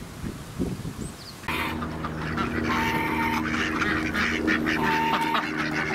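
Ducks and geese calling at a pond. The calls start suddenly about a second and a half in and carry on as a dense, steady chorus, with a higher held call repeated three times.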